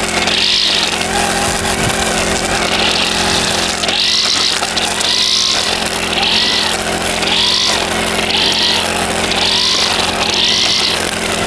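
Backpack brush cutter engine running under load, its nylon line head with square nylon line cutting grass. The engine pitch and line hiss swell and fall back about once a second as the head sweeps through the grass.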